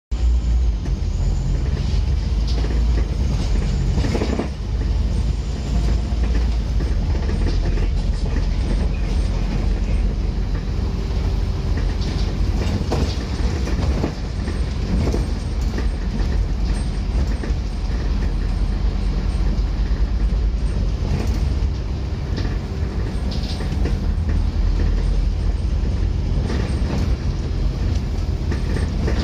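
A Scania N230UD Omnicity double-decker bus on the move, heard from the upper deck: a steady low rumble from its five-cylinder diesel and the road, with the body and fittings rattling and knocking now and then.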